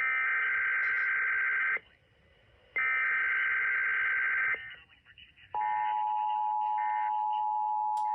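Emergency Alert System SAME header: two bursts of warbling digital data tones, each just under two seconds with a one-second pause between them. About five seconds in, the steady two-tone EAS attention signal begins and holds, marking the start of a broadcast tornado warning alert.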